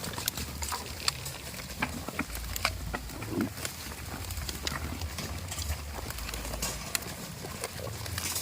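Goats moving about on a farm: scattered sharp clicks and knocks over a low steady rumble, with one brief low sound about three and a half seconds in.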